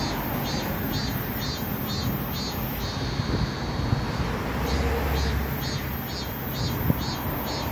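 Road traffic: a steady low rumble from cars passing, swelling about two-thirds of the way in as a car goes by. Over it comes a high, rhythmic chirping, about two chirps a second.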